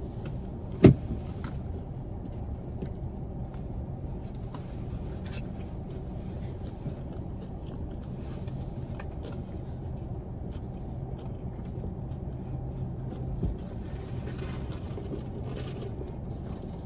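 Steady low rumble of a car, heard from inside the cabin, with one sharp click about a second in and a few faint ticks.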